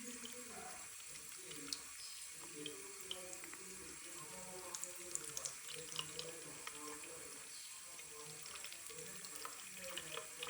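Water running steadily from a tap into a sink, with scattered light clicks and splashes.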